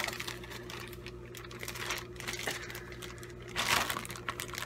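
Clear zip-lock plastic bag crinkling and rustling as it is handled, with a louder rustle a little before the end.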